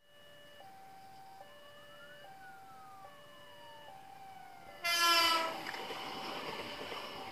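Level-crossing warning alarm sounding in two alternating tones, each held for under a second. About five seconds in, the approaching inspection train's horn gives one short, loud blast.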